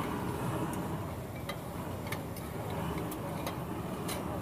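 Squid stir-frying in a small metal pan over a gas burner: a steady low rush of burner and frying noise, with a few light clicks of metal chopsticks against the pan.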